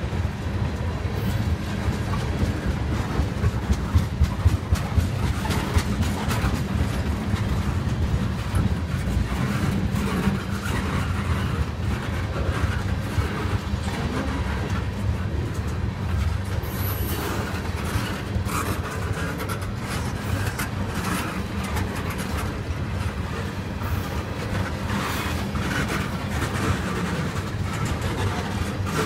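Freight train cars rolling past: a steady low rumble with frequent irregular clicks of the wheels going over rail joints.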